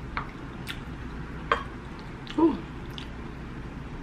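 A spoon stirring and scooping thick cheese grits, giving a few short wet squelches and clicks, the loudest a little past halfway.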